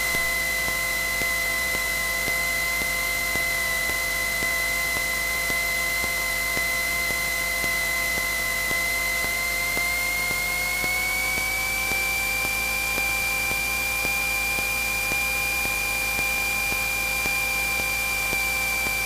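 Cessna 172N engine and propeller noise heard in the cabin during the final approach: a steady whine of several tones over a low hum, some of them shifting slightly higher about eleven seconds in.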